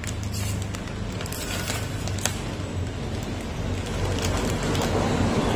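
Plastic snack pouch crinkling and crackling in irregular little clicks as fingers dig into it for cashews, over a steady low hum.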